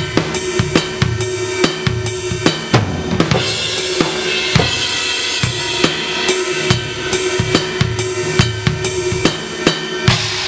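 Electronic drum kit played through a 2Box drum module, sounding BFD2-derived acoustic kit samples: a steady groove of kick, snare and cymbal hits, several strikes a second, with a cymbal wash swelling around the middle.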